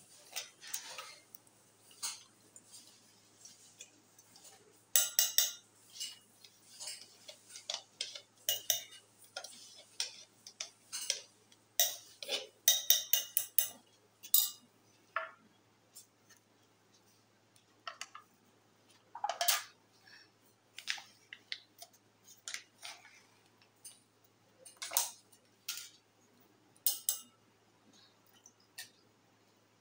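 Metal spoon clinking and scraping against a stainless-steel mug and a plastic yogurt cup as curd is scooped out and stirred in. The clinks come irregularly, with quick runs of them about five seconds in and again around twelve to fourteen seconds.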